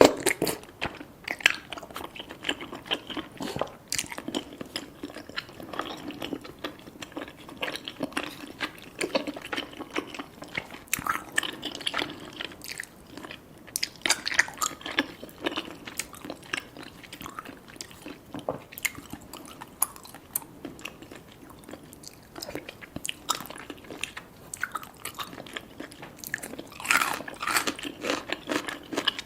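Close-miked chewing and biting of cheesy rice cakes and fish balls: irregular wet mouth clicks and smacks, with a denser flurry near the end.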